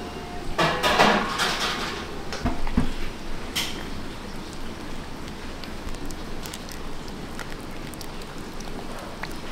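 Dishes and utensils clattering in a commercial kitchen for a couple of seconds near the start, with a sharp clink a little later, over a steady background noise.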